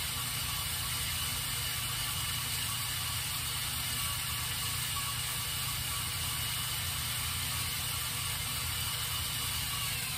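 Motor-driven chain lift of a K'nex roller coaster model running steadily, pulling the train up the lift hill, with a faint steady whine.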